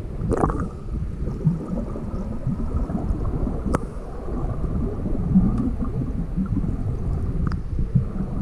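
Muffled underwater rumble of water moving around a camera's waterproof housing, with a few sharp clicks through it.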